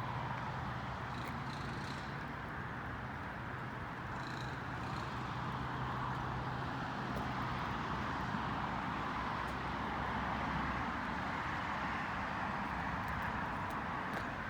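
Steady outdoor background noise with a low hum underneath that fades out about nine seconds in.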